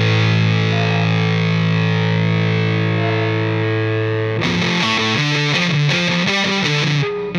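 Background rock music with distorted electric guitar: one long held chord, then a quick run of short repeated notes starting a little over four seconds in, with a brief drop just before the end.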